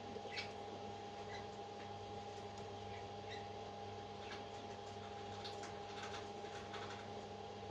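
A steady low electrical hum, with faint scattered clicks and ticks over it.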